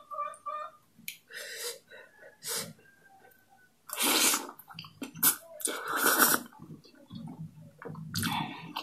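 Spicy instant noodles slurped off a fork: two long, loud sucking slurps about four and six seconds in, with shorter slurps and mouth sounds between.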